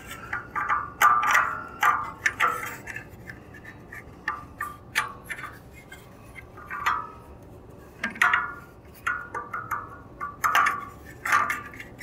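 Irregular clicks, knocks and light clatter as a bandsaw's blade guard cover is handled and fitted into place on the blade guide post, about a dozen short sounds.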